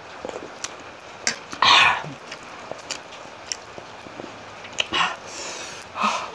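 A person eating sea grapes with chili: wet mouth clicks and chewing, broken by loud hissing breaths out through the open mouth, the biggest about two seconds in and more near the end. She is gasping at the chili heat.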